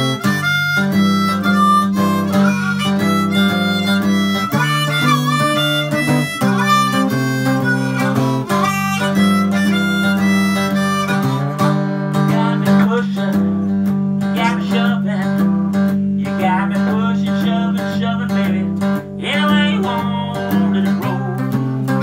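Harmonica played cupped in the hands, with bending, wavering notes, over a box-bodied guitar picking a repeating low riff in an informal jam.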